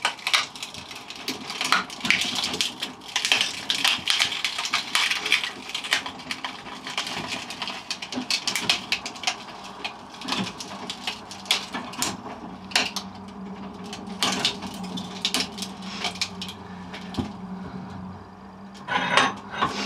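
An MP3 player being crushed between vice jaws: its plastic casing and screen glass crack, snap and crunch in an irregular run of sharp clicks.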